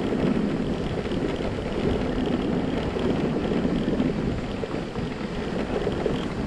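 Motorcycle running on the move, a steady engine and road noise mixed with wind buffeting the microphone.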